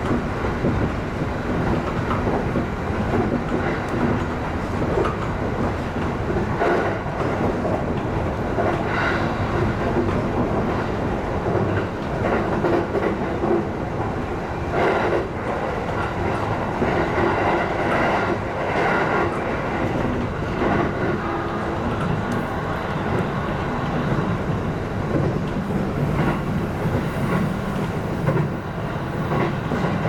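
E531 series electric train running along the track, heard from inside the front car: a steady rumble of wheels on rail, broken by several louder clacks.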